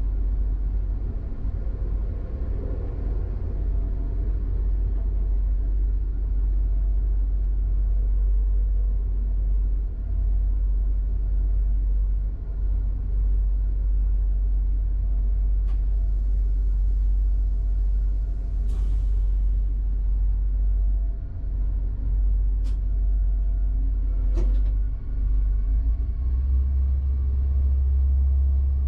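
Bombardier AGC (B 82500) railcar heard from inside its driver's cab while rolling slowly at about 22 km/h: a steady, heavy low rumble with faint steady tones over it. A few sharp clicks come in the second half, and the deep rumble grows stronger near the end.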